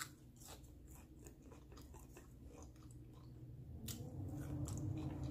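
Close-up chewing of an air-fried breaded cheese stick, with many small crunches and wet mouth clicks. A low hum builds up from about four seconds in and becomes the loudest sound.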